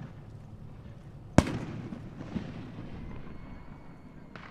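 A firework bursting with one sharp, loud bang about a second and a half in, its rumble dying away over the next couple of seconds, then a smaller pop a second later and a faint one near the end.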